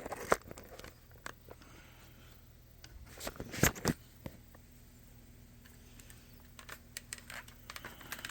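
Handling noise of a camera tripod and phone holder being adjusted: scattered clicks, scrapes and rattles, with a louder cluster of knocks about three and a half seconds in. A faint steady hum starts about four seconds in.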